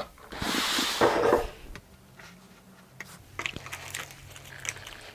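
Hands handling a board game box and its cards: a rustling, sliding burst in the first second and a half, then quieter, with a few light clicks.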